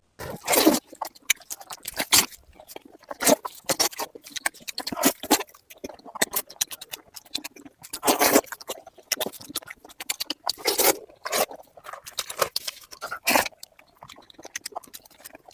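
Close-miked eating: chewing and wet mouth sounds, full of irregular small clicks and smacks, with a louder burst of eating noise every two to three seconds.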